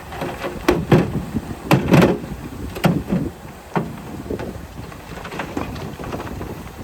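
Heavy earthmoving machinery running steadily, with a run of loud clunks and knocks in the first four seconds, the loudest about two seconds in.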